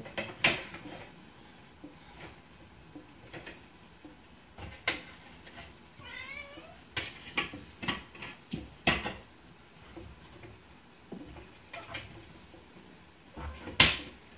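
A kitchen knife clicking and knocking against a plate as a cucumber is cut and peeled, in scattered sharp clacks, the loudest near the end. About six seconds in, a house cat meows once.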